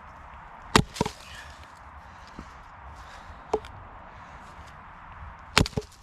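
Firewood being chopped or split with a blade: a series of sharp wooden strikes, two close together about a second in, one in the middle, and a quick pair near the end.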